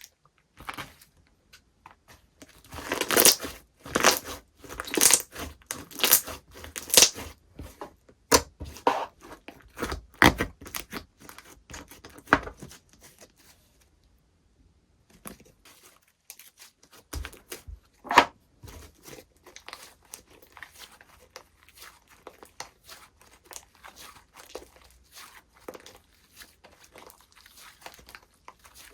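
Slime being squeezed, stretched and pressed by hand, giving a dense run of sticky crackles and pops. Louder bursts come in the first third, then a short pause about halfway and quieter crackling after.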